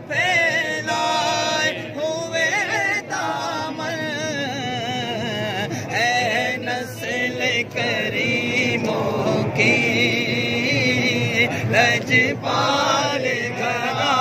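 A group of men's voices chanting a devotional refrain together, the sung lines wavering up and down in pitch.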